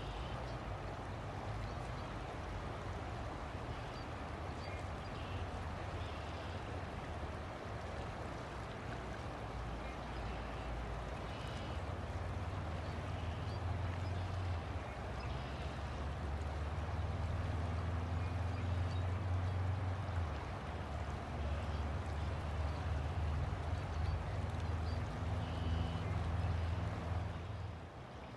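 River water flowing steadily, under a low hum that swells through the middle and second half and falls away near the end. Faint short high chirps sound now and then.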